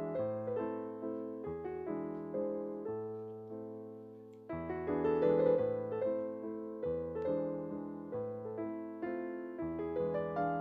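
Background piano music: a gentle melody of struck notes that fade out, over bass notes that change every second or two.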